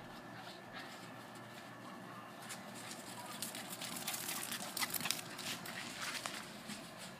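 Running footfalls scuffing on dirt: a quick, irregular patter of taps through the middle few seconds.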